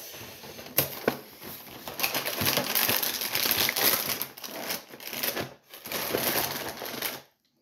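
A cereal box being opened by hand: cardboard flaps pulled apart and the plastic inner bag crinkling and rustling, with scattered small clicks. It cuts off abruptly near the end.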